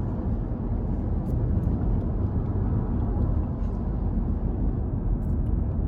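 Steady low rumble of a car running, heard inside the cabin, with a few faint ticks.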